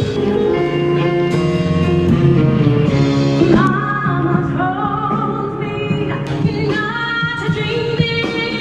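A woman singing a slow, soulful song over instrumental accompaniment. Her voice comes in about three and a half seconds in with long held notes.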